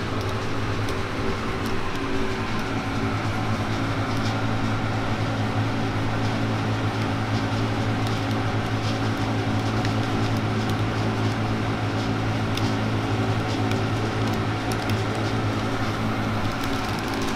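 Steady machine hum: a low drone with several steady higher tones above it.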